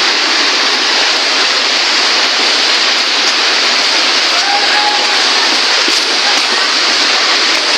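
Loud, steady rush of a waterfall's falling water, an even hiss that doesn't let up.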